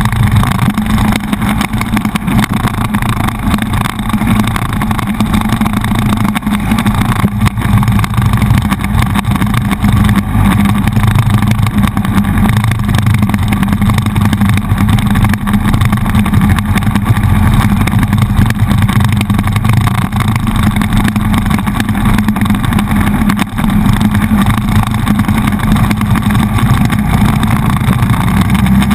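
Motorcycle engine running steadily while riding, mixed with loud wind and road noise on the handlebar-mounted camera.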